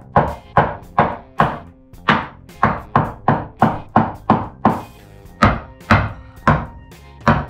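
Small hammer striking wood framing as a new sister joist is driven into place: a steady run of sharp blows, about two to three a second, with a short pause about five seconds in.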